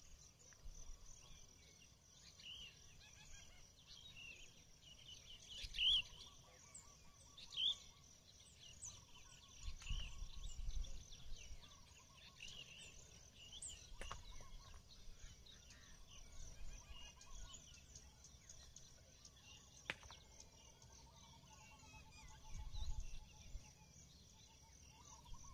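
Faint dawn ambience: birds chirping and calling in short, scattered notes over a steady high insect trill, with a couple of brief low rumbles in the middle and near the end.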